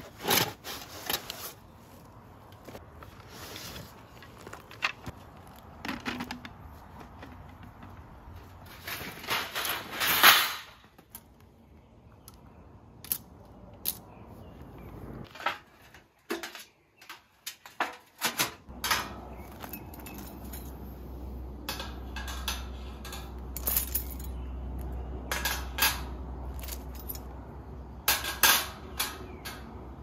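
Camping gear being handled: rustling in a canvas backpack, then a folding Picogrill stainless fire pit being put together, its thin steel fire bowl flexed into the rod stand and the grate set on top, with scattered clicks and light metal knocks. A louder rustle comes about a third of the way in, and a low steady rumble sets in past the middle.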